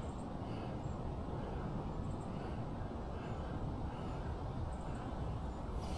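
Steady low outdoor background rumble with faint, short high-pitched chirps and soft calls repeating now and then.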